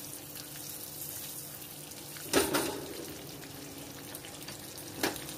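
Butter sizzling in a steel kadhai with whole dried red chillies and a bay leaf frying in it: a steady hiss with fine crackling. There are two louder knocks, one about two seconds in and a smaller one near the end.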